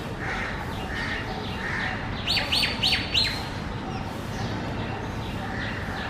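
Common myna calling: a quick run of four sharp notes, each sweeping down in pitch, about two and a half seconds in, with softer short call notes before it.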